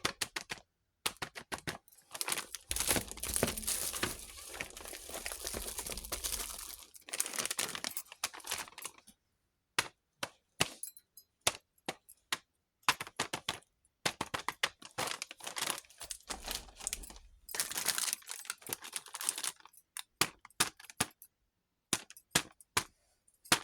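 Small plastic toy kitchen pieces handled and set down in a run of sharp clicks and taps. Twice, for several seconds each, plastic packaging crinkles: a few seconds in, and again about two-thirds of the way through.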